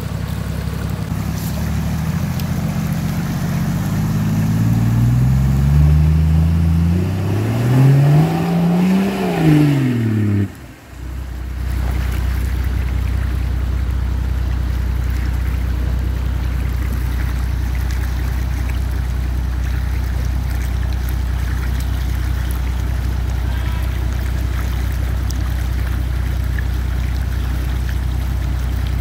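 Off-road 4x4 engine revving, its pitch climbing for several seconds and then falling. It cuts out abruptly about ten and a half seconds in, followed by a steady low engine drone.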